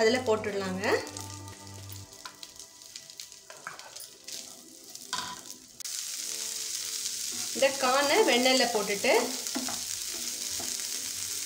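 Sweet corn kernels frying in butter in a non-stick pan, a steady sizzle that starts suddenly about halfway through, as the kernels are stirred with a wooden spatula. Faint background music fills the quieter first half.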